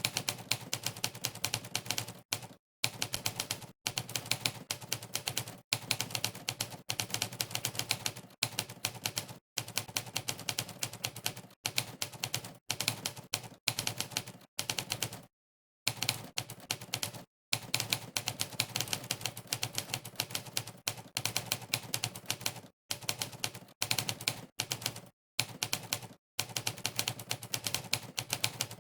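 Monkeytype's typewriter keystroke sound effect: rapid key clacks, many a second, in runs broken every second or two by short, dead-silent pauses.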